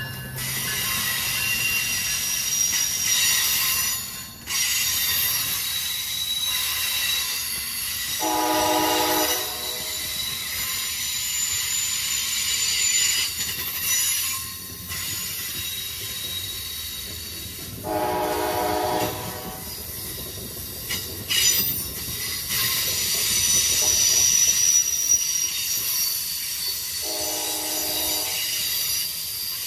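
Amtrak Northeast Regional train rolling past close by: steady wheel-on-rail noise with high-pitched wheel squeal from the Amfleet coaches. Three short blasts of a multi-tone train horn, each about a second long and roughly nine seconds apart, sound over it.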